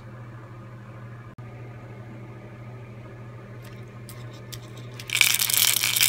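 Live Target Mullet lure shaken by hand, its built-in rattle giving a loud, dense rattling that starts about five seconds in after a few faint clicks. Before that there is only a low steady hum.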